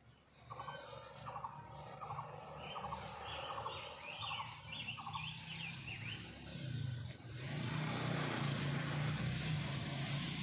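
Birds calling outdoors: one bird repeats a short call about six times, roughly two a second, while other birds chirp higher. From about seven seconds in, a low rumbling hiss grows louder and covers the birdsong.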